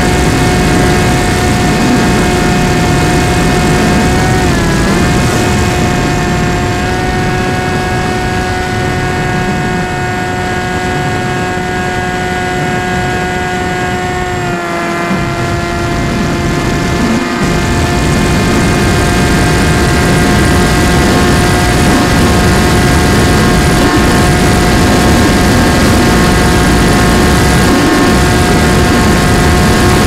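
Model airplane's motor and propeller whining at a steady high pitch, heard from on board, with wind rushing over the camera's microphone. The pitch dips briefly about four seconds in and steps down a little about halfway through.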